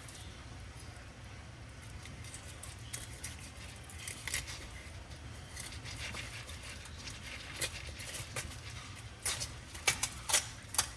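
A knife working on a hybrid striped bass as it is cleaned: scattered scraping, clicks and taps of the blade and fish, getting more frequent and louder near the end, over a steady low rumble.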